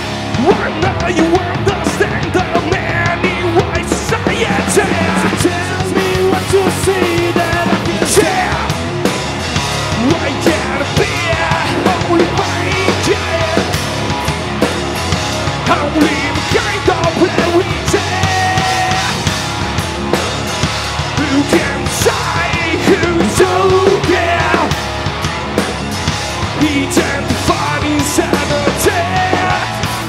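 Rock band playing live: electric guitars and drums with a singer at the microphone.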